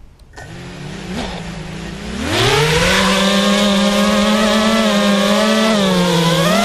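FPV quadcopter's brushless motors spinning: a low whine from about half a second in, then a quick rise in pitch and loudness about two seconds in to a loud steady whine, with a brief dip in pitch near the end before it climbs again.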